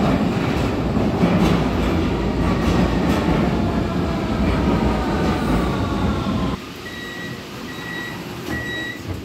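Vienna U-Bahn train pulling into the station, rumbling, with a falling whine from its drive as it brakes; the noise cuts off suddenly as it stops. Then a short high door-signal beep sounds four times, evenly spaced.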